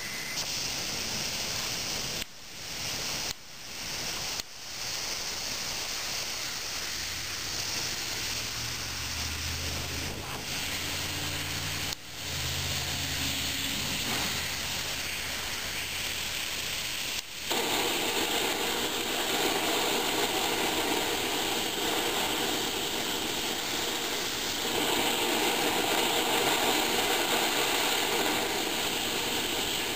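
Compressed air hissing through a Hago siphon oil-burner nozzle, cut off briefly a few times in the first dozen seconds, then opened up to a louder, steadier rush a little past halfway as the nozzle sprays atomized oil mist before lighting.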